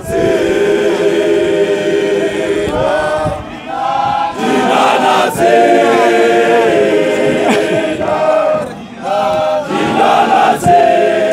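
A large group of men singing unaccompanied in harmony, holding long chords in phrases with short breaks between them.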